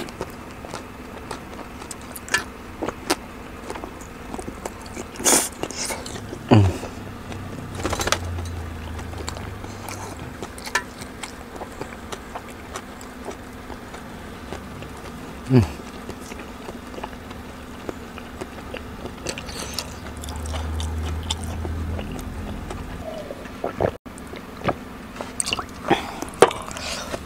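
Close-miked mukbang eating: a person chewing spoonfuls of meatball soup with noodles, with wet mouth smacks and clicks every few seconds. Near the end, sips from a glass.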